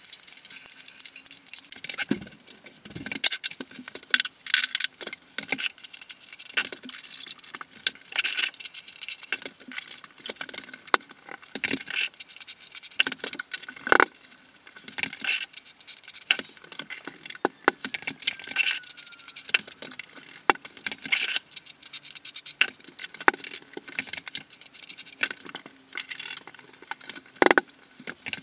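Dense, rapid clicking and clinking of ceramic tiles and tiling tools being handled and pressed into place, sped up in a time lapse.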